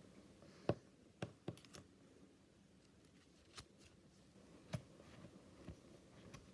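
Faint handling of Pokémon trading cards being sorted and put in place: a few light taps and clicks, the sharpest about a second in and again near five seconds.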